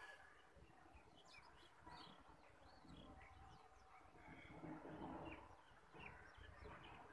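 Near silence with faint, scattered short bird chirps.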